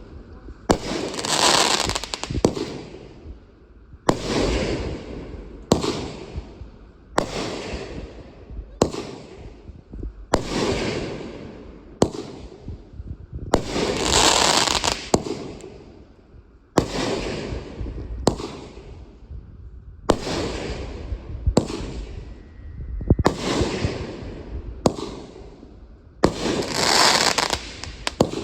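Consumer fireworks going off in a steady series: a sharp bang about every one and a half seconds, each followed by a rush of noise that fades over about a second.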